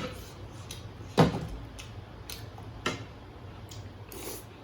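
A few short knocks and clinks of dishes and utensils during a meal, the loudest about a second in and another near three seconds, over a low steady hum.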